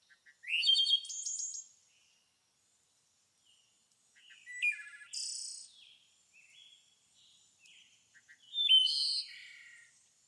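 A songbird singing three phrases a few seconds apart, each a quick run of varied high chirps, trills and short glides, with quiet between them.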